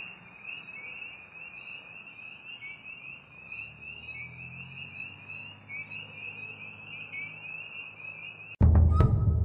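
A steady, high-pitched chorus of trilling animal calls, like a mass of insects or frogs, pulsing evenly over a faint low hum. Near the end it cuts off suddenly and loud music with heavy drums begins.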